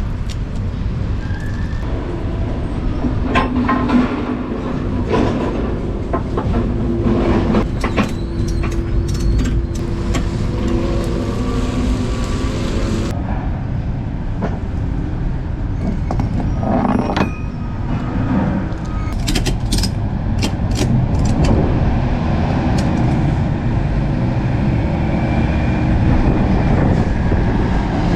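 Lorry cab noise while driving: a steady low rumble of engine and road with scattered knocks and rattles.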